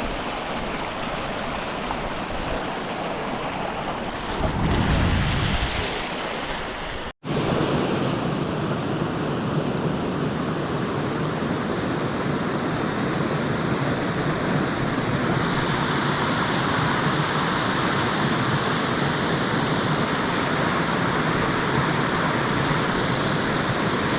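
Steady outdoor rushing noise with no distinct events. A low rumble swells briefly about four and a half seconds in, the sound cuts out for an instant at about seven seconds, and the hiss grows a little brighter from about sixteen seconds.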